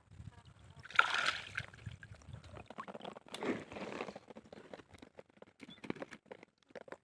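Water splashing and sloshing, with two louder splashes about a second in and about three and a half seconds in, among small clicks and knocks.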